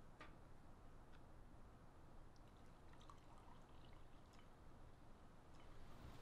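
Near silence: low steady background hiss with a few faint, scattered small clicks.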